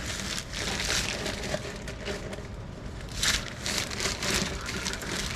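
Crackling, scraping handling noise from rusted exhaust pipe pieces being worked by hand, with a few short bursts of scraping about three to four seconds in.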